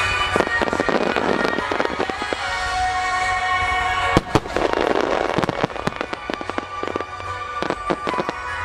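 Fireworks bursting in quick succession, many sharp bangs and crackles over the show's accompanying music, with one especially loud bang about four seconds in.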